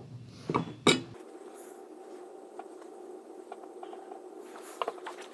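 Steel ruler being handled and set down on a sheet of paper over cloth: a couple of light metallic clicks just under a second in, then faint occasional taps.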